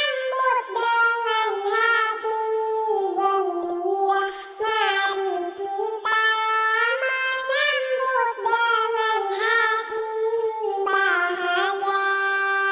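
A high, childlike, pitch-shifted voice singing an Islamic shalawat in Arabic, in a slow, ornamented melody.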